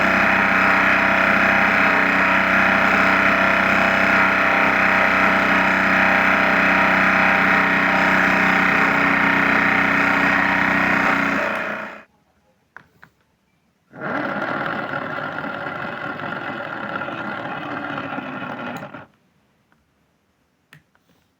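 Simba washing machine running loudly with a steady whine, stopping abruptly about halfway through; after a pause with a few faint clicks it runs again for about five seconds, with a rougher, less tonal sound, and stops again.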